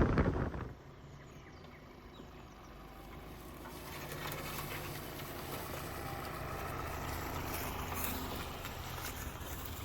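A vehicle engine running steadily with a low hum, growing louder from about three seconds in.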